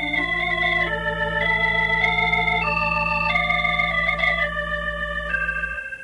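Organ music bridge: a short run of held chords changing every half second or so over a sustained bass note, fading out near the end. It is a radio-drama transition cue between scenes.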